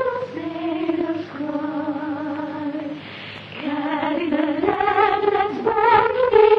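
Soundtrack music: a woman's voice singing a slow, lullaby-like melody in long held notes that waver slightly in pitch, with a short break about three seconds in.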